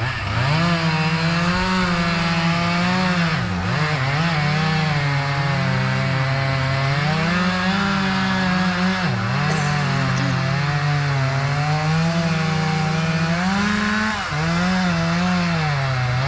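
Two-stroke chainsaw running at high revs through wood. Its engine pitch rises and sags continuously as the cut loads it, with a few brief dips.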